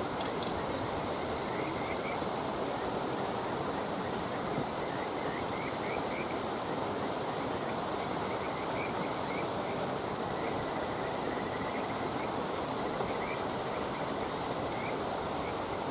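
Wood campfire burning with a few faint sharp crackles, over a steady rush of running water. Frogs give repeated short chirping calls in little clusters throughout.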